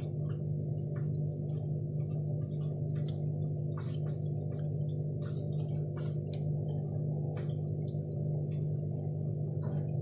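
Bush WMNB712EW washing machine's drain pump running in engineer's test mode: a steady hum, with faint scattered ticks throughout.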